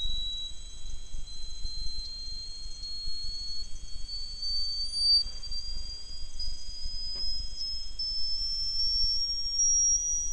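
Plug-in ultrasonic rodent repeller's tone, recorded with an ultrasonic microphone and pitched down 80% into hearing range: a single thin tone climbing in small, even steps. It is the repeller sweeping upward from about 25 kHz toward 65–75 kHz, a little higher every 400 milliseconds or so.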